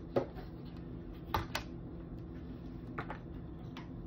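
Plastic food-storage containers being handled and set down: a handful of light clicks and taps of plastic on plastic, the loudest just after the start and about a second and a half in, over a steady low hum.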